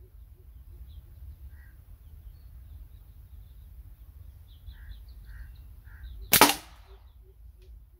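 A slingshot is shot once: its rubber bands are released from full draw with a single sharp snap about six seconds in. Faint repeated calls run in the background.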